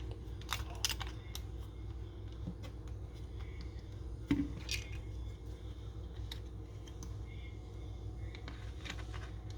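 Scattered light clicks and taps of small plastic camera parts being handled during reassembly of a compact digital camera, over a steady low hum.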